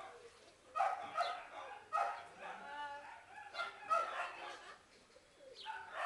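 Young terrier-mix dogs giving a few short barks and yips.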